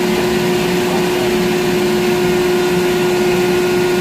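Steady machinery hum inside a deck crane's cab, with one strong unchanging tone over a rougher low drone: the crane's power unit running.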